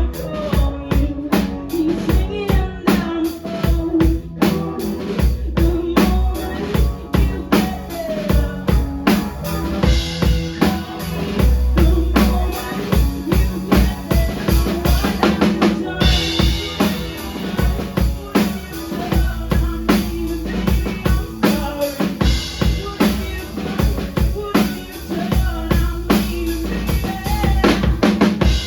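Live rock band playing a song at full volume, a drum kit keeping a steady beat of kick and snare under sustained pitched instruments.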